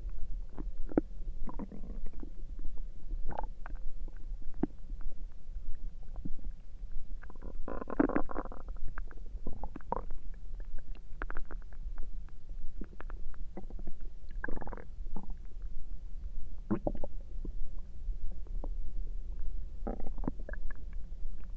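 Human stomach gurgling and rumbling: many short pops and squelches, with longer gurgles about 8 seconds in and again around 14, 17 and 20 seconds, over a steady low hum.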